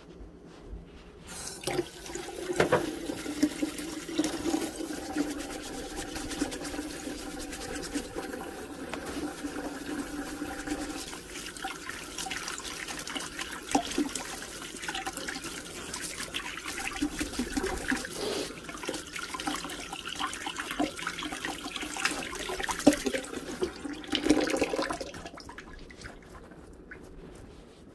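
Kitchen faucet running into a sink while hands are washed under the stream, with small splashes and rubbing. The water comes on about a second in and is shut off near the end.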